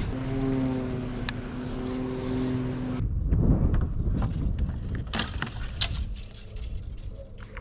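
Steady, fixed-pitch hum of a boat motor, cutting off suddenly about three seconds in. After it, wind on the microphone and scattered light clicks and taps.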